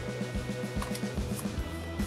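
Background music with a steady beat over held low notes.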